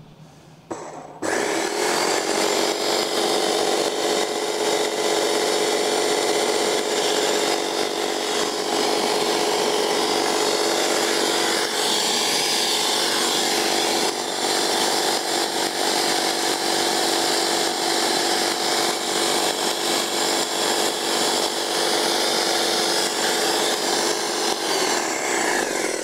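Graco Magnum Project Plus airless paint sprayer's electric piston pump running steadily in prime, circulating paint out through the drain tube. Its drone starts about a second in and stops just before the end.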